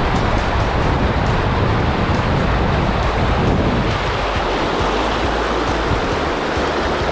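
River water rushing steadily, with wind buffeting the microphone and rumbling underneath.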